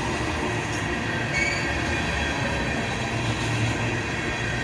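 CSX freight train of tank cars rolling past, a steady rumble of steel wheels on the rails. Faint brief wheel squeals come twice in the first second and a half.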